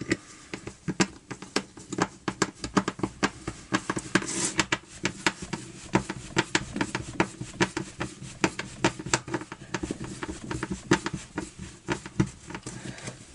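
Rapid, irregular clicks and knocks from the plastic recoil starter of a Master GBS-43S trimmer being handled while its upper ratchet is screwed down with a screwdriver.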